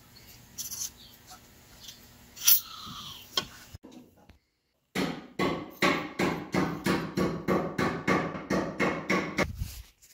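A hammer tapping in a fast, even series of about four strikes a second for roughly four and a half seconds, after a few softer knocks of handling parts.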